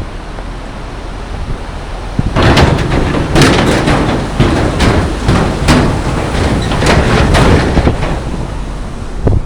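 Tata Harrier driving across a bridge, its tyres clattering and banging over the deck in a rumbling run of knocks that starts about two seconds in, over steady road and wind noise.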